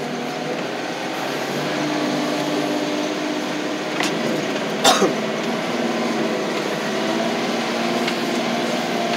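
Loader's engine running steadily under the operator's seat as the machine drives across the yard, with one sharp clunk and a short falling squeal about five seconds in.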